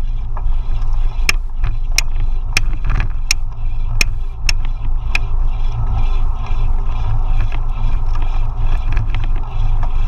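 KBO Hurricane being ridden: a steady low rumble of motion and wind, with sharp ticks about every two-thirds of a second through the first half. This is the abnormal riding noise the owner wants support to diagnose.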